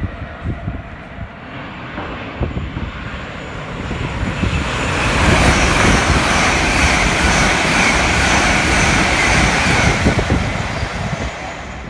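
Passenger train passing through at speed: a rushing roar of wheels and air that builds from about four seconds in, holds loud for several seconds as the coaches go by, and fades near the end.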